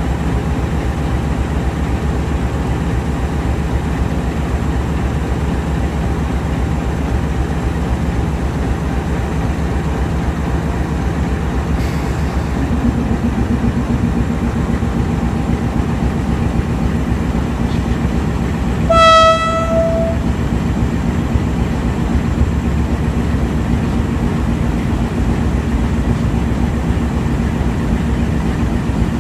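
Steady low rumble of RGE-20 diesel-electric locomotives at idle and drifting in slowly, with a second steady engine hum joining a little before halfway. A bit past halfway, a locomotive horn gives one short blast of about a second.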